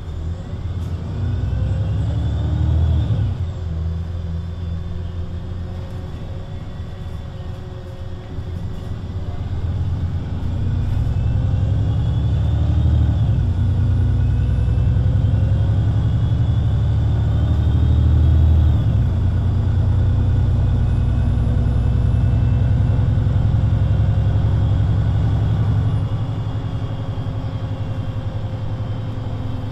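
VDL Citea LLE 120 city bus's diesel engine pulling away under load, a low rumble whose pitch climbs and then drops about three times as the Voith automatic gearbox changes up, with a high whine rising alongside. It runs steadily after the last change and eases off near the end.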